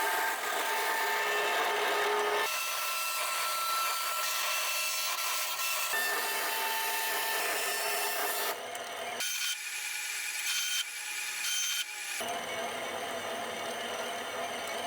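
Power tool working wood, a steady high-pitched machining noise with a motor whine, heard in several short stretches that change abruptly from one to the next.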